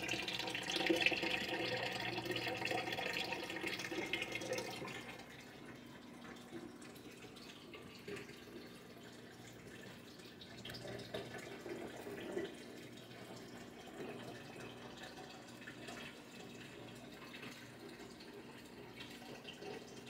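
Water in a red-eared slider turtle tank splashing and trickling as the turtles thrash over food. It is louder for the first five seconds or so, then settles to a quieter steady trickle over a faint hum.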